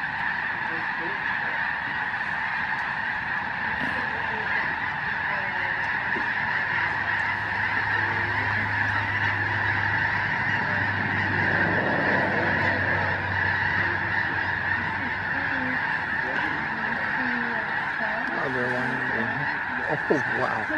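A huge flock of snow geese calling in flight, thousands of honking calls blending into one continuous din.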